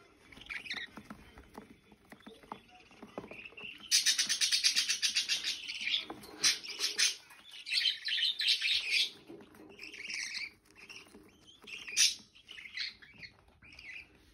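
Budgerigars chirping and chattering. About four seconds in comes a loud run of very fast-repeated chirps lasting about two seconds, followed by scattered separate chirps and calls.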